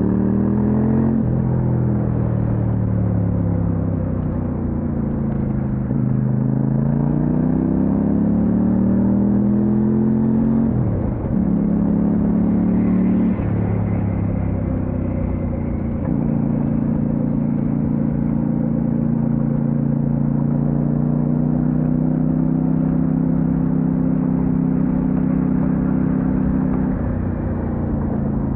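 Kove 800X Pro's parallel-twin engine running under way, its pitch falling and rising with the revs and gear changes through the first half, then holding steady at a cruise.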